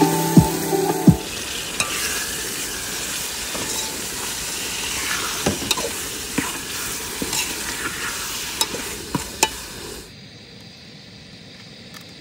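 Food sizzling in hot oil in a pan, an even hiss with scattered sharp pops and clicks, which drops away about ten seconds in.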